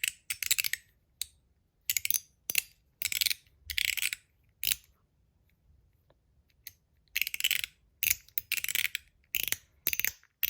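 Stainless steel mechanical slider fidget (MOT Groove) worked back and forth by hand, its slide moving over Teflon and snapping into its detent positions. Short, sharp metallic clacks and brief sliding rasps come in irregular runs, with a pause of about two seconds midway.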